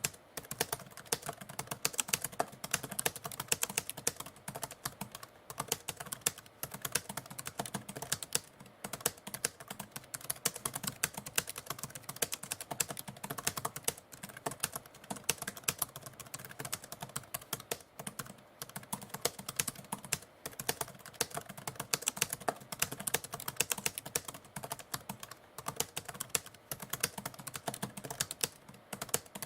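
Typewriter typing: a rapid, continuous stream of key strikes with brief pauses.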